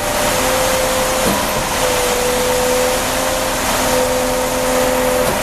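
Concrete pump truck running steadily under load while pumping concrete: a loud, even engine and hydraulic drone with a steady whine over it.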